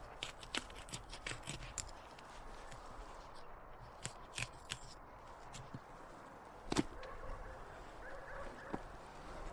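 Scattered sharp clicks and taps from a knife and hands working a raw bison carcass on a wooden table, with one louder knock about seven seconds in.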